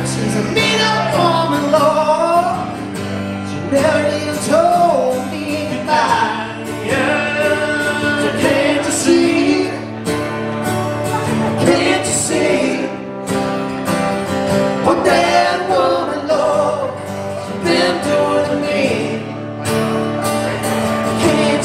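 Live acoustic duo: two acoustic guitars strummed under a man's singing voice, a country-style song played through a small PA.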